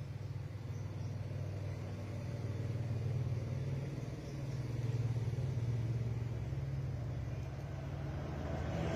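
Low, steady motor rumble, swelling slightly a few seconds in and easing again.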